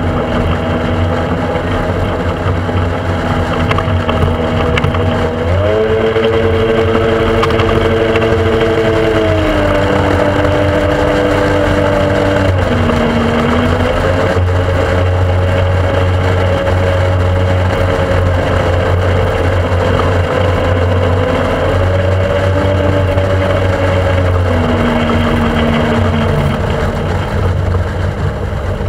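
Speedboat engine running under way, its pitch stepping up and down several times as the throttle changes, over a steady rush of wind and water.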